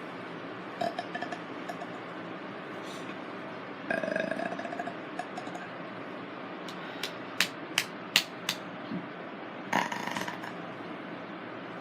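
A person burping: a long rattly burp about four seconds in and a shorter one near the end, with scattered sharp clicks and knocks in between.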